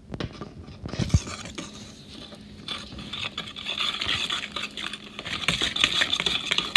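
A whisk beating pancake mix in a plastic mixing bowl: a knock about a second in, then rapid scraping and clicking strokes against the bowl that grow louder toward the end.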